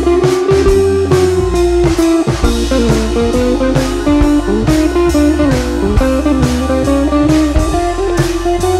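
Background music: a guitar-led blues track with drums and bass at a steady beat.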